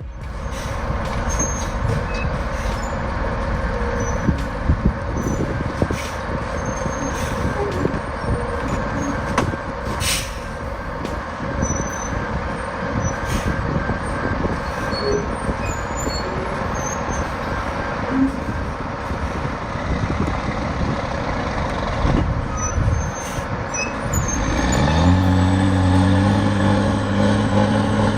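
Heavy logging truck engine working, a loud continuous rumble with scattered clicks and knocks. About three-quarters of the way through, a steadier engine note comes in and its pitch steps up and down.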